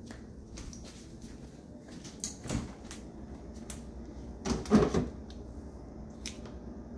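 A few light clicks and knocks of a bottle being handled, and red wine vinaigrette poured in a thin stream into a small bowl of dressing, with a louder handling noise about two-thirds of the way through.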